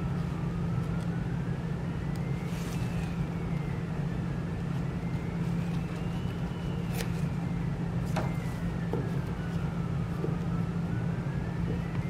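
A siren wailing, its pitch slowly rising and falling every few seconds, over a steady low rumble, with a few light clicks and taps from paper and a glue stick being handled.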